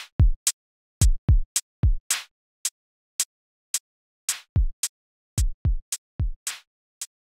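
Electronic drum-machine beat with no melody: deep kick drums that drop in pitch, in a syncopated pattern, between crisp hi-hat and snare clicks.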